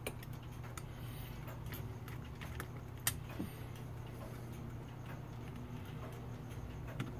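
A few faint metallic clicks and taps from small brass parts of a Seth Thomas No. 124 clock movement being handled with fingers and pliers, one sharper click about three seconds in, over a steady low hum.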